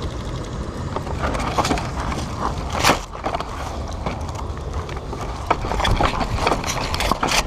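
Handling noise from a body-worn camera: clothing and gear rubbing and knocking against it, with many small clicks, one louder crack about three seconds in, and a low wind rumble.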